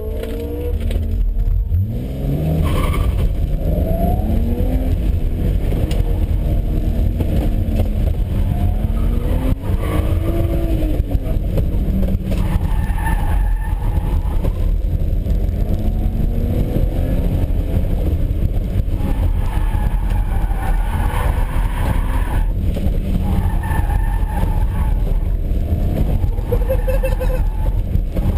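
A BMW E30's engine, heard from inside the cabin, revving up from a standing start about a second in and then rising and falling through gear changes and corners on an autocross course. In the second half the tires squeal at times through the turns.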